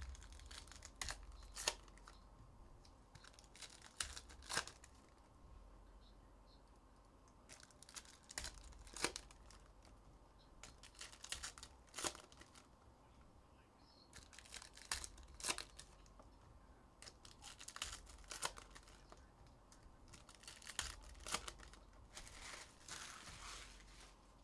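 2023 Upper Deck Goodwin Champions trading card packs being torn open by hand: faint wrapper tearing and crinkling in short, scattered bursts, with the odd sharp snap of cards being handled.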